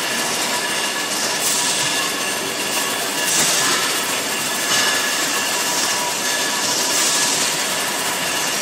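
Bottling-line case packer running, lowering wine bottles into cartons: a steady machine din with a faint high whine, and repeated short hisses.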